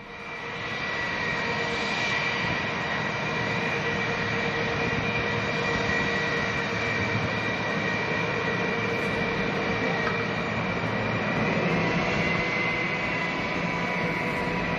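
Twin jet engines of a Russian Knights Sukhoi Flanker-family fighter running at taxi power: a steady jet roar with a high whine, fading in at the start.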